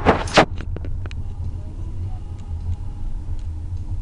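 Low, steady rumble of a car driving, heard from inside the cabin. Two brief loud bursts of noise in the first half-second, then a few faint ticks.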